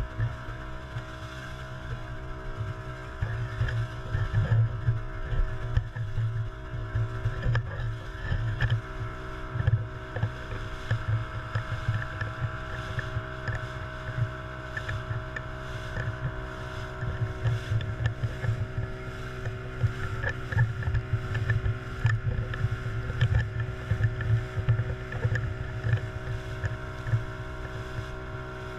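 Small open fishing boat's motor running steadily at speed, with the hull slapping and splashing through choppy water in irregular thumps.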